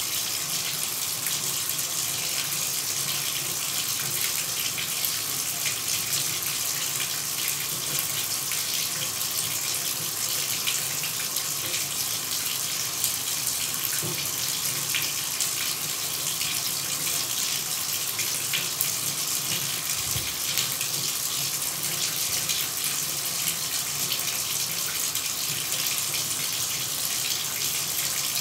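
A shower running: water spraying from the shower head and splashing, a steady hiss with no breaks.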